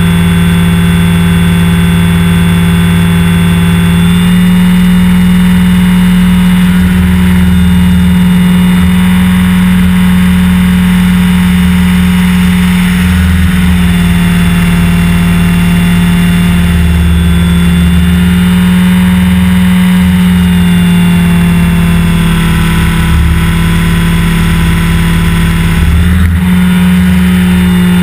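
Align T-REX 550 electric RC helicopter heard from its own onboard camera: the loud, steady whine of the motor, gears and spinning rotor, its pitch shifting several times through the flight, over a fluttering low rumble.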